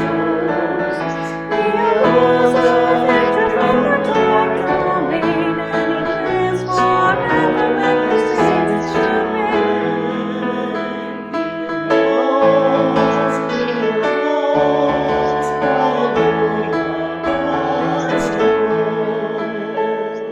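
A hymn played on piano with singing.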